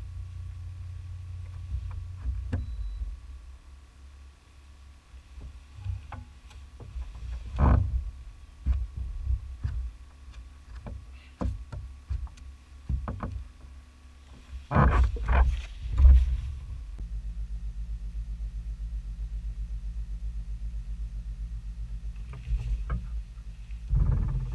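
Scattered knocks and bumps of gear being handled on a kayak deck, loudest in a cluster about fifteen seconds in. From about seventeen seconds in comes a steady low hum of a boat motor.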